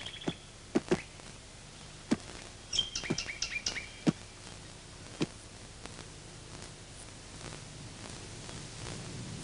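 Scattered single thuds of kangaroos' feet striking the ground as they hop through the bush, with a bird chirping a quick run of short high notes about three seconds in. After about six seconds only a faint steady hiss remains.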